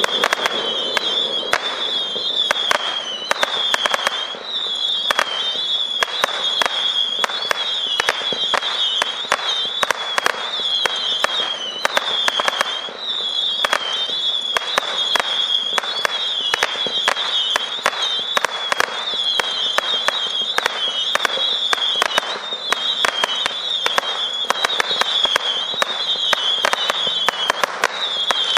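Winda 'Star Spangled Saturn' 440-shot saturn missile battery firing nonstop: a rapid stream of sharp pops and crackles over a steady high whistle from the whistling shots.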